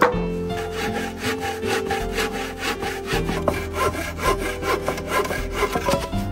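Hand saw cutting across a wooden plank in quick, even back-and-forth strokes, a steady rasp of teeth through wood.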